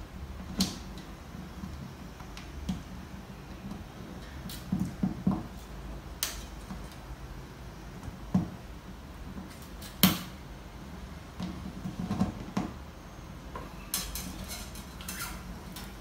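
Scattered light clicks and knocks from a 12-string acoustic guitar's bridge pins and string ends being pushed into the bridge and handled against the guitar top, with a quick run of small clicks near the end.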